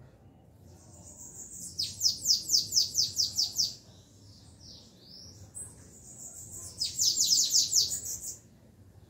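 Caged canaries (Belgian-type domestic canaries) singing against each other in a song contest. The song comes in two loud bursts of rapid, high, falling trill notes, one in the first half and one in the second.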